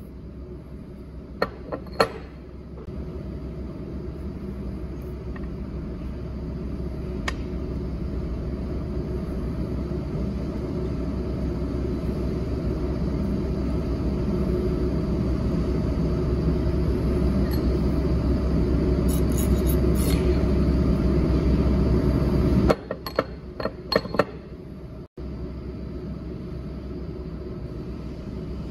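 A steady low rumble that grows slowly louder, then drops away sharply about 23 seconds in. A few light metallic clicks come from steel shaft parts being handled and fitted, near the start and again just after the rumble drops.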